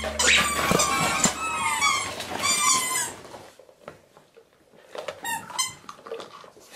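Squeaky toy fruit squeaking over and over as beagles bite and squeeze them, dense and rapid for about three seconds, then dropping off to a few scattered squeaks.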